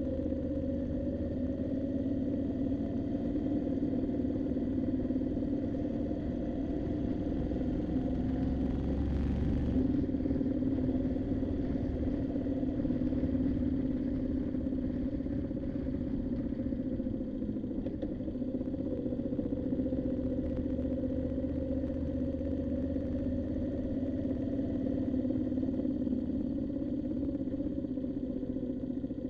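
Moto Guzzi V7's air-cooled transverse V-twin running steadily on the move. Its note rises a little about eight seconds in and falls back a second or so later.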